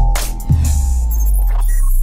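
Electronic intro music with heavy bass: a hard hit about half a second in, followed by a long low bass note sliding downward.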